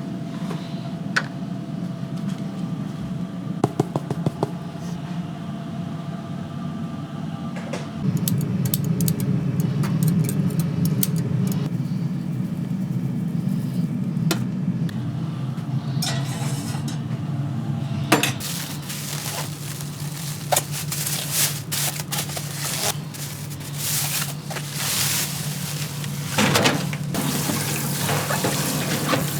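Kitchen work: scattered clinks and knocks of dishes and utensils over a steady low hum, which gets louder about a third of the way in and turns busier and noisier after the middle.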